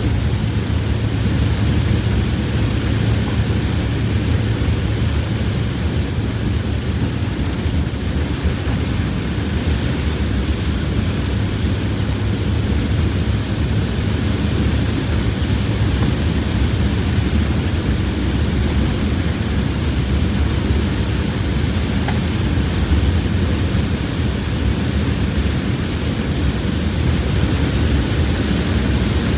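Detroit Diesel 8V92TA two-stroke turbocharged V8 in a Wanderlodge RV bus, newly fitted with four new pistons and liners, pulling steadily at highway speed. It is heard from inside the cab as a steady low drone mixed with tyre and wind noise.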